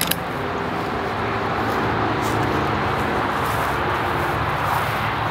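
Steady wash of road traffic noise, with a sharp click right at the start.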